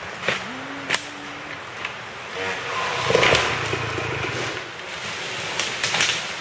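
Dirt bike engine running at low revs, then revving up briefly about three seconds in, with a few sharp knocks as the bike works down a rutted slope.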